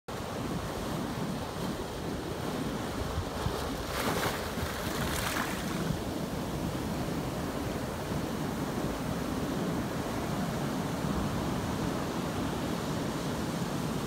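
Ocean surf breaking steadily on a rocky shore, with seawater washing and fizzing through a narrow sandstone channel. A louder splashing rush of water comes twice, about four and five seconds in.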